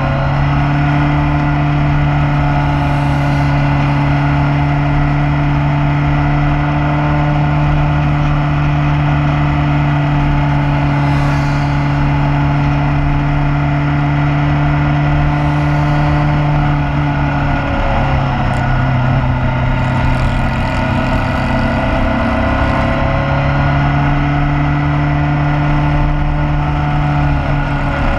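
Motorcycle engine running steadily at cruising speed, heard from the riding bike with wind and road noise. The engine note drops briefly about two-thirds of the way through as the throttle eases, then picks up again.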